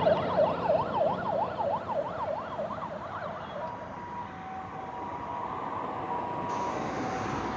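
Fire engine siren in a fast rising-and-falling yelp, about four cycles a second, fading away as the truck drives off into the distance. By about halfway it is nearly gone, leaving faint road noise.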